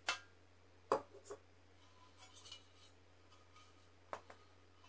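Small objects being handled and set down: a sharp knock at the start, two more around a second in and another pair near the end, with light rustling and rubbing between. A steady low hum runs underneath.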